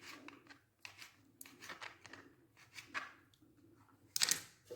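Knife cutting boiled mandarins on a board: a series of quiet, short slicing and squishing ticks, with a louder scrape near the end.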